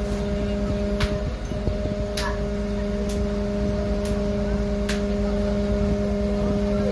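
Fire truck's aerial ladder machinery running with a steady pitched hum. Six sharp clicks come about once a second and stop about five seconds in.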